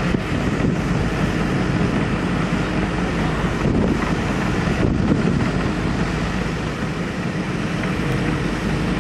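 Komatsu D61PXi bulldozer's diesel engine running steadily, with a faint steady hum under the noise.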